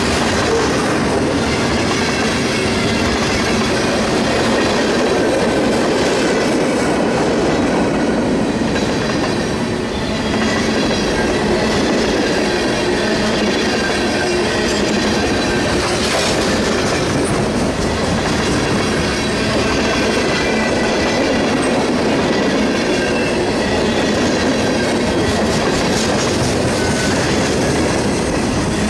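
Freight cars of a mixed train (hoppers, tank cars, gondolas, boxcars) rolling past close by, a steady noise of steel wheels on rail with clicking over the rail joints and thin, high wheel squeals running through it.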